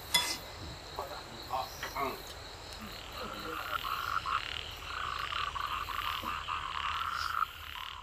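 A chorus of frogs croaking at night, building a few seconds in and cutting off near the end.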